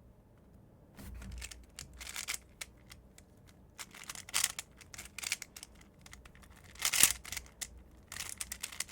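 MoYu RS3M 2020 speedcube with its springs removed, its loose plastic layers turned fast: quick runs of clattering clicks and scrapes, loudest about seven seconds in and densest near the end.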